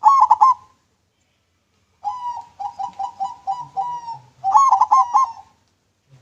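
Zebra dove (perkutut) cooing: a short stepped phrase, then after a pause a run of quick repeated coo notes followed by another stepped phrase.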